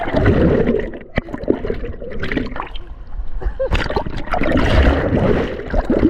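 River water splashing and gurgling close against the microphone as a swimmer is carried along in the current. The splashing is irregular, easing off about a second in and picking up again in the second half.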